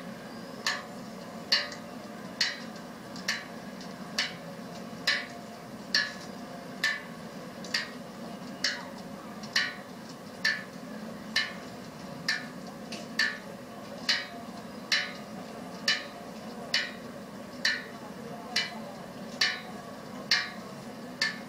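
A sharp, slightly ringing tick repeating at an even pace, a little faster than once a second, over a steady low background hum.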